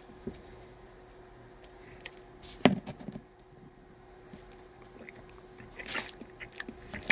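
Mouth noises of a person sucking on a sour hard candy drop: small clicks, a short louder mouth sound about two and a half seconds in and a breathy noise around six seconds, over a faint steady hum.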